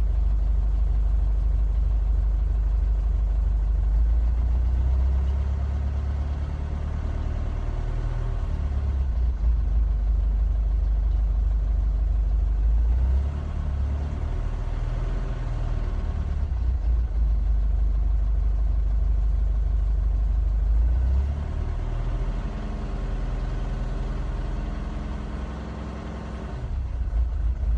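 Mercedes OM651 four-cylinder diesel engine idling roughly, its note wavering and its loudness sagging and picking up again several times.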